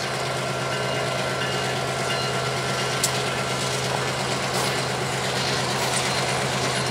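Freight train running by: a steady diesel engine drone over rolling noise, with one sharp click about three seconds in.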